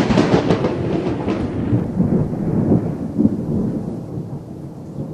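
A thunderclap sound effect: a sudden loud crack at the start, then a long rolling rumble that slowly fades.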